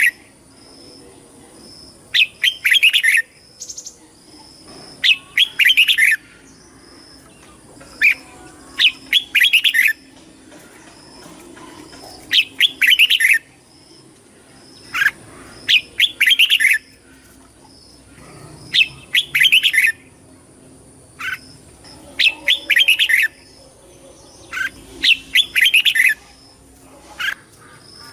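Red-whiskered bulbul singing: short, loud, warbling phrases repeated every two to three seconds, with a faint steady high-pitched whine behind.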